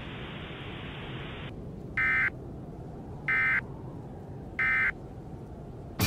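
A low hiss, then three short bursts of Emergency Alert System SAME end-of-message data tones, each a brief harsh digital squawk, about 1.3 seconds apart. The bursts signal the end of the alert message.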